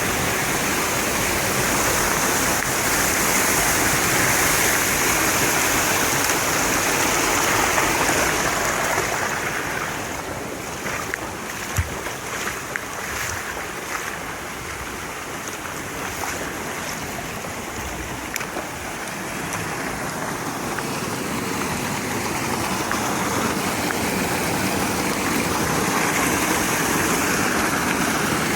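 Mountain stream rushing steadily near its headwaters. The water sound eases off partway through and swells again near the end, with a few sharp knocks in the quieter stretch.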